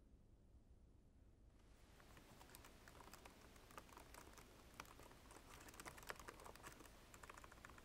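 Faint typing on a laptop keyboard: quick, irregular key clicks that begin about a second and a half in.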